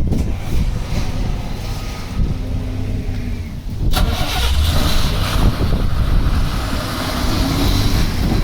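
Wind buffeting the microphone over a running motor-vehicle engine. About four seconds in, the sound changes sharply to a louder, hissing rush.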